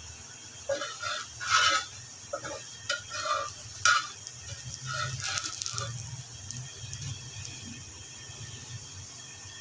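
Paratha frying in hot oil: a steady sizzle, with a run of sharp pops and crackles between about one and six seconds in.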